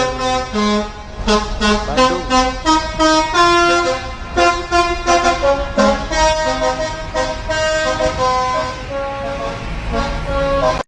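Bus telolet horn, a multi-tone air horn on a bus, playing a melody: several horn notes sounding together and switching pitch in quick succession, over a low rumble.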